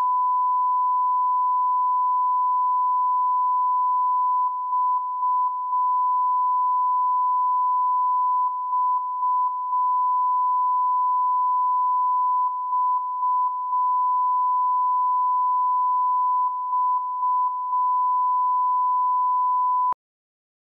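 Broadcast line-up test tone that goes with colour bars: a steady, loud, single-pitched high beep. It is broken by three quick dropouts in a group every four seconds, and it cuts off suddenly near the end.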